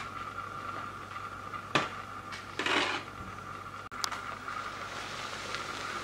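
A metal spatula clicks once against a metal serving tray and then scrapes briefly as cream is spread over a rolled sponge cake. After an abrupt cut, baking paper rustles faintly as it is peeled off a chocolate sponge sheet. A steady high hum runs underneath.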